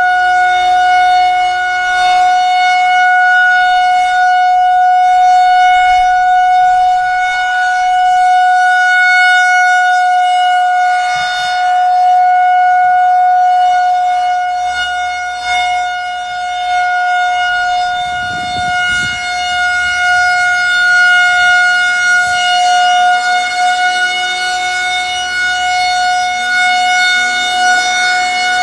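Federal Signal 2001-130 electromechanical outdoor warning siren sounding a steady full-alert tone, the pitch holding level while the loudness gently swells and dips.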